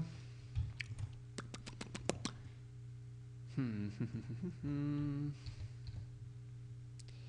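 A man humming a wordless 'hmm' twice, first falling in pitch and then held briefly, after a quick run of about seven computer clicks. A steady low electrical hum runs underneath.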